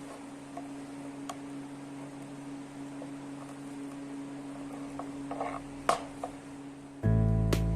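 A steady electrical hum with a few light clicks and taps, the loudest cluster about five to six seconds in. Music comes in loudly near the end.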